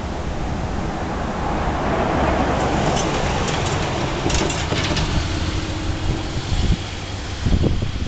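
A vehicle passing by: a rush of tyre and wind noise that swells about two seconds in and then fades, with a few dull thumps near the end.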